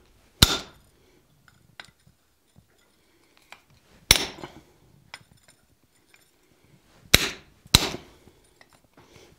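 Hand hammer striking a slot punch driven into hot flat steel bar on an anvil: four sharp blows with a short metallic ring, one just after the start, one about four seconds in, and two close together about seven seconds in. This is the slot being punched that will later be drifted out into a bottle opener's ring.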